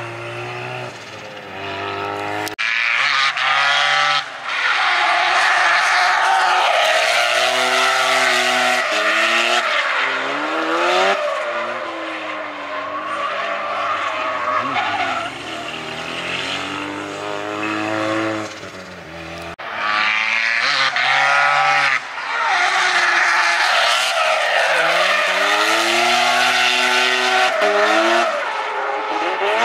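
Mazda RX-7 FD3S's turbocharged 13B rotary engine revving up and down repeatedly through drift runs, with tyres squealing and skidding. The sound changes abruptly twice, about two and a half seconds in and again near twenty seconds.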